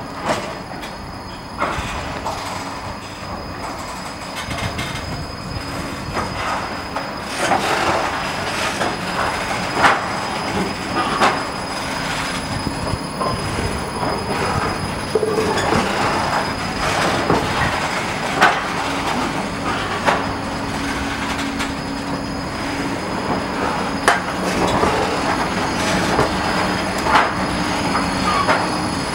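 Low-floor Škoda tram rolling slowly past close by over a track crossover. Its wheels knock sharply over the points now and then, with a steady wheel squeal in the second half.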